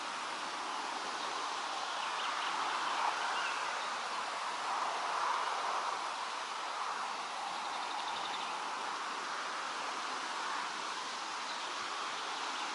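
Steady wind rustling through leaves, rising and falling gently, with a few faint high chirps.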